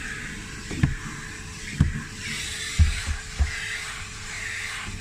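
Vacuum cleaner running with a steady motor hum and the rush of air through its nozzle, which rises and falls as it is worked around a car interior. Four dull knocks come from the nozzle bumping against the seats and trim.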